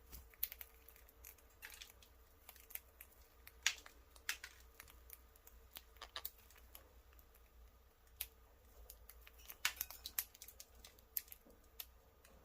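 Lovebirds cracking and husking millet seeds in their beaks: small irregular clicks and crackles, sometimes in quick clusters.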